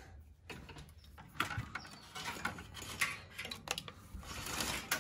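Light clicks, taps and rubbing of hands handling and pulling electrical wiring, with a few sharper clicks scattered through.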